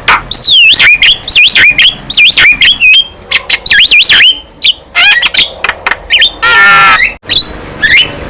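Javan myna singing loudly: a rapid, varied run of whistled glides, squawks and clicks, with one harsh, buzzy rasp late on.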